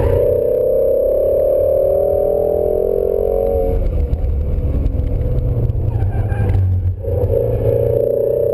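The Shelby GT350's 5.2-litre flat-plane-crank V8, heard from inside the cabin, pulling hard with its pitch climbing steadily for nearly four seconds. The note then drops away as the driver lifts and slows for the next turn, and at about seven seconds in it comes back strongly and climbs again on the throttle.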